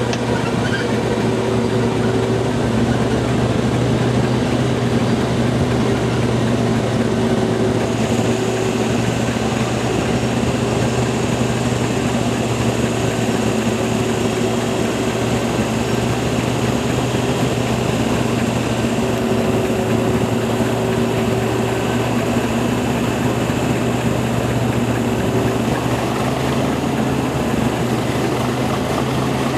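English Electric Class 37 diesel locomotive's V12 engine working hard under power, heard from right behind it. The engine note is loud and steady, and a higher whine joins it about eight seconds in.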